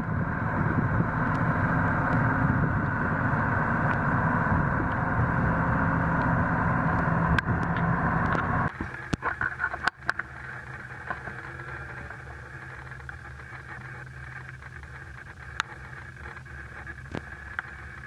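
New Holland combine harvester's diesel engine running steadily. About nine seconds in, the sound drops suddenly to a quieter steady hum with a few light clicks.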